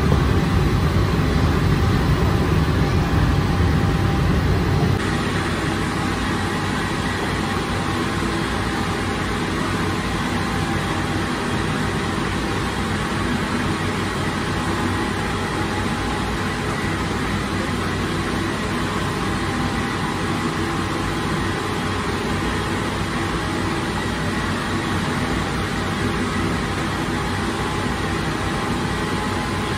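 Steady mechanical hum and rush of a bakery's revolving bread oven running. The deep rumble drops away about five seconds in, leaving an even machine noise.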